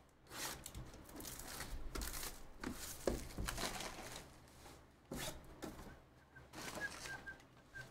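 Hands opening a sealed 2023 National Treasures baseball card hobby box: soft rustling and crinkling of the wrapping and scraping of cardboard as the box is turned and its lid is slid off, with a few handling knocks. A few faint high chirps come near the end.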